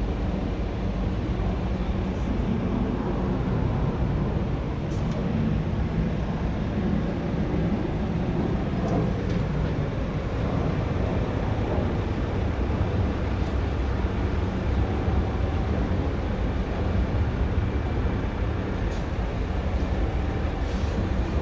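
Scania R tractor unit's diesel engine idling steadily, a continuous low hum.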